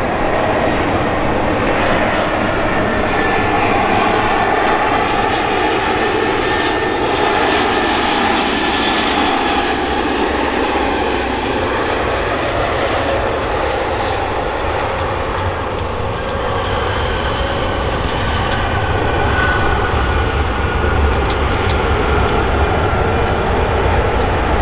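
Twin-engine jet airliner's engines running as it lands and rolls along the runway, a steady engine noise whose low rumble grows stronger near the end.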